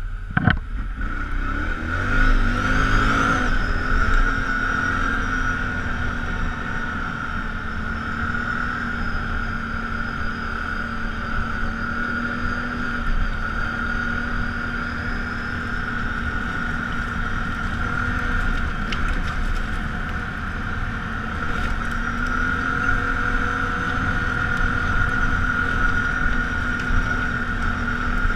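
ATV engine running steadily as the quad rides along a trail, with the revs climbing briefly about three seconds in and again more gently later on.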